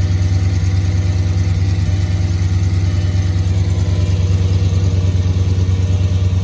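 Audi S8 D3's 5.2-litre V10 idling steadily on a cold start, carrying a noise that the owner takes for an exhaust leak, one that goes away once the engine warms up.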